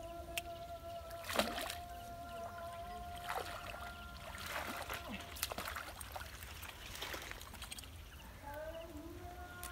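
A small fish hooked on a bamboo fishing pole thrashing and splashing at the water surface, with several sharp splashes over the first seven seconds or so as it is played in and lifted out of the water.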